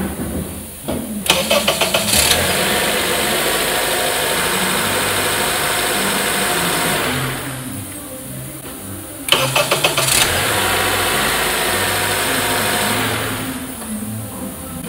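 A Honda Accord's 2.4-litre four-cylinder i-VTEC engine, just fitted with a new starter, cranks for about a second and catches quickly, then runs. It is shut off around seven seconds in, then cranked and started again about nine seconds in, running until shortly before the end.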